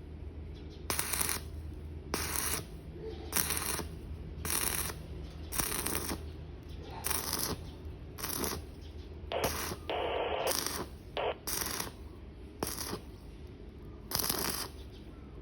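Arc welding in short repeated bursts, about one a second, each a brief crackle of the arc, as in stitch or tack welding. A steady low hum runs underneath.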